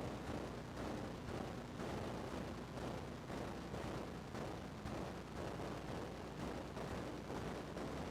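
A steady low rumbling noise, without any clear birdsong.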